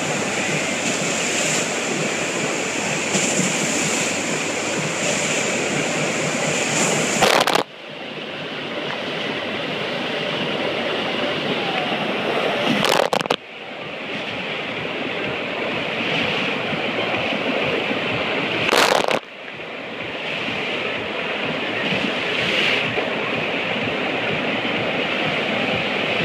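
Steady rush of pumped water streaming up the sheet wave of an indoor flowboarding wave machine. Three short loud cracks, about six seconds apart, each followed by a brief drop in the rush.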